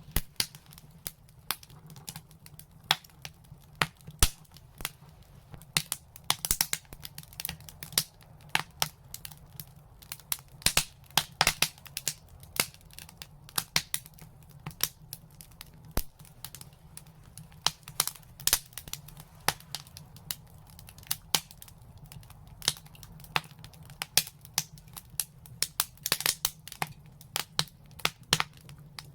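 Wood fire crackling in a brick fireplace: irregular sharp snaps and pops, sometimes several in quick succession, over a faint steady low hum.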